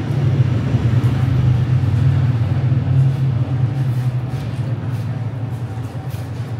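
Low, steady motor rumble, loudest in the first half and easing off toward the end.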